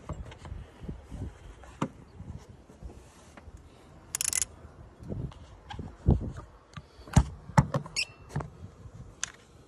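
Hand-tool work on a 2012 Honda CR-V engine: a ratchet on a long extension and spark plug socket being worked to loosen a spark plug, giving irregular metal clicks and knocks. There is a short hissing scrape about four seconds in, and the loudest knocks come around seven seconds in.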